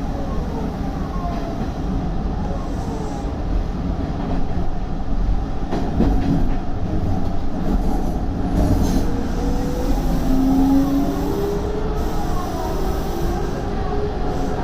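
Hanshin 5500-series electric train running on the Mukogawa Line, heard from on board: a steady rumble with several whine tones gliding slowly up and down in pitch. A sharp knock of the wheels over the rail comes about six seconds in.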